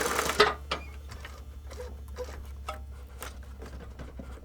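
Heavy-duty sewing machine stitching through a plastic patch on a skate stops with a clunk about half a second in. Scattered light mechanical clicks follow over a steady low hum.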